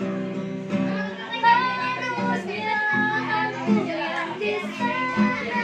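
A child singing a pop song over instrumental accompaniment with steady held notes, in a loose, informal busking style.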